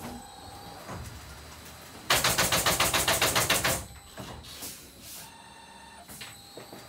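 MHP Ultra automated canvas stretching machine cycling: about two seconds in, a fast, even rattle of roughly sixteen sharp mechanical strokes lasting under two seconds, with lighter clicks and knocks from the machine before and after.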